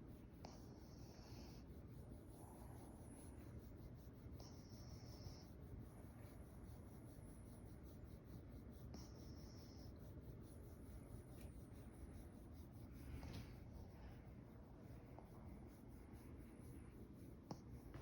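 Pekingese dog snoring faintly in its sleep: a soft, high whistling wheeze with each breath, every couple of seconds, alternating between a lower and a higher whistle.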